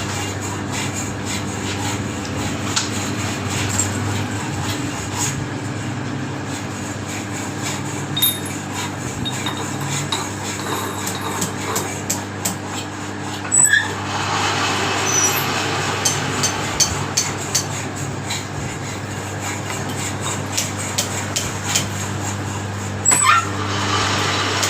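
Scattered light metallic clicks and taps of hand tools over a steady low hum, with two short louder sounds about halfway through and near the end.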